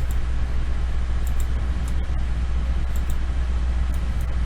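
Steady low electrical hum and background hiss from the recording, with a few faint clicks scattered through it.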